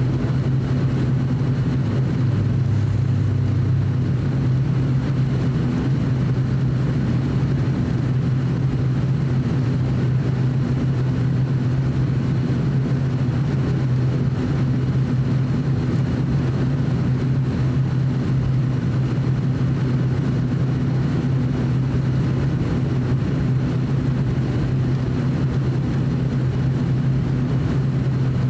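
ATR 42-600 turboprop engines and propellers running at taxi power, heard from inside the cabin as a steady, even drone with a strong low hum. A slightly lower hum briefly joins about two seconds in.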